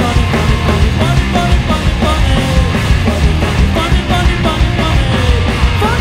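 Rock band playing loudly: a drum kit with crashing cymbals and electric guitars.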